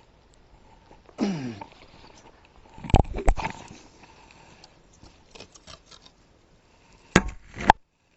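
Scattered sharp knocks and bumps: a short falling-pitched sound about a second in, two loud knocks about three seconds in and two more near the end, after which the sound cuts off abruptly.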